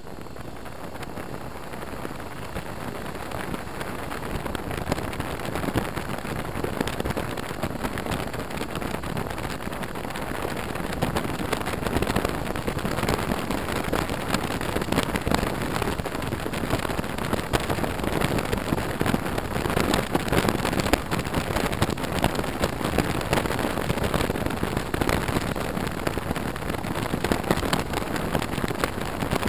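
Wind rushing over a helmet-mounted camera's microphone on a moving motorcycle, with a steady, dense roar that grows louder over the first ten seconds or so as the ride picks up speed.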